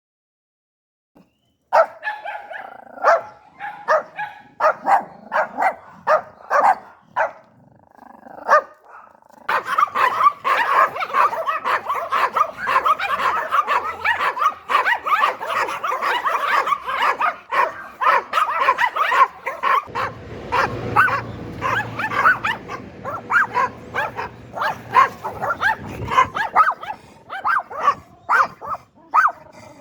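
Yorkshire terrier barking: short, sharp yaps in quick succession, starting about two seconds in and growing denser and more continuous from about ten seconds in.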